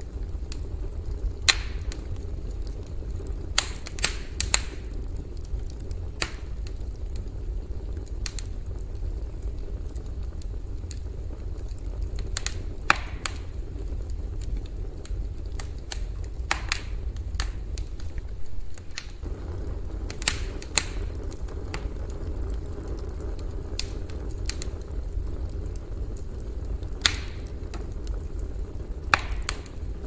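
Campfire burning: sharp, irregular pops and crackles of burning wood every second or two over a steady low rumble.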